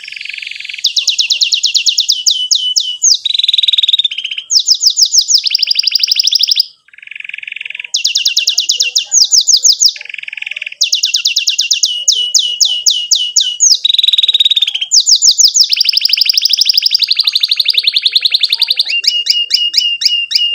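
Canary singing a long, continuous song of fast trills and rolls, each phrase a rapid run of repeated sweeping notes that switches to a new phrase every second or two, with one brief break about a third of the way in.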